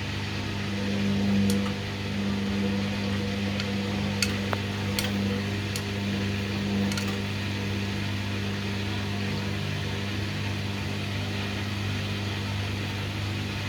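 Hoover washing machine's drum motor running with a steady low hum that swells and fades, struggling to reach spin speed. A few light clicks or knocks in the first half.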